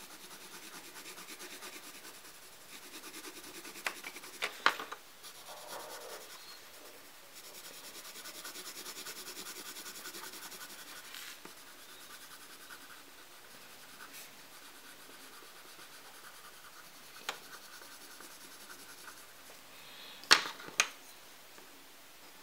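Coloured pencil shading on paper: a soft, steady scratchy rubbing of quick back-and-forth strokes as the brown colour is laid into the ice-cream cone. A few sharp taps cut in, the loudest two close together near the end.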